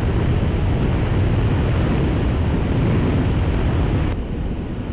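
Wind rushing over the microphone of a Yamaha FZ6 S2 motorcycle riding at road speed, with the bike's running and road noise underneath. About four seconds in, the rush drops and turns duller.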